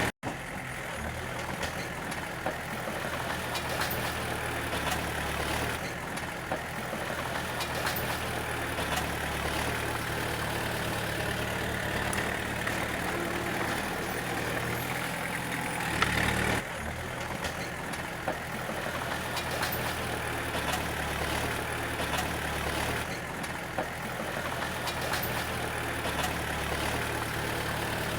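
Diesel engine of a small bulldozer running with a steady low drone. A short sharp knock stands out about sixteen seconds in.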